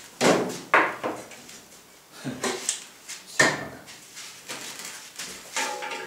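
About half a dozen separate clanks and knocks of steel being handled, the sharpest about three and a half seconds in, as the welder's earth clamp is fixed onto the steel gas cylinders before welding.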